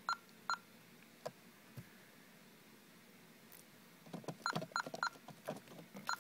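Honeywell alarm keypad beeping once per key press: two short beeps near the start, then four more in quick succession about four seconds later, with soft button clicks. These are the keystrokes that quit installer programming mode and return the panel to disarmed, ready to arm.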